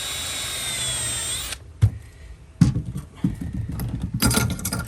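Power drill running at a steady speed for about a second and a half, then stopping, as a screw hole is pre-drilled for a hatch spring support. A few sharp knocks and handling clatter follow.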